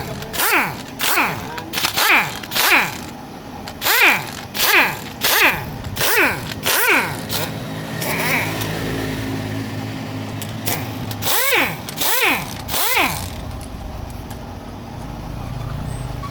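Repeated rasping strokes of a hand tool scraping on a part, about one and a half a second, in several runs. In a pause in the middle a low steady hum is heard.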